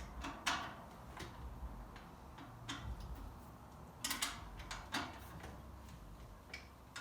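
Faint, irregular light clicks and metal taps as a bicycle wheel's axle bolts are tightened back up in the fork, with a small cluster of clicks about four seconds in.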